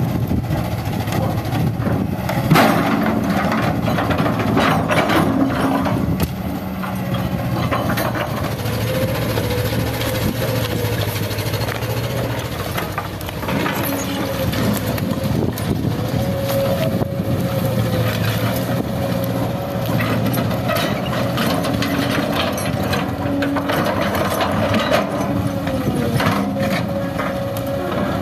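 A hydraulic crawler excavator's diesel engine running steadily under load, with a steady whine, while its bucket scrapes and knocks against broken concrete rubble. The sharpest knock comes about two and a half seconds in.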